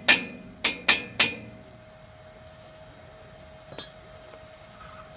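Hammer striking steel: four sharp, ringing blows within about a second and a half, then a single faint tap a couple of seconds later. A steady faint hum runs underneath.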